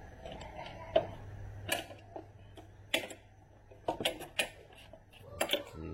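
Hand tools clicking and knocking against metal parts under a car: a dozen or so sharp, irregular clicks, the loudest about a second in, with a cluster around four seconds in and another near the end.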